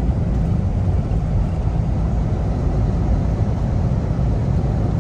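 Steady low rumble of a Kenworth T680 semi-truck's engine and tyres, heard from inside the cab while cruising along a road.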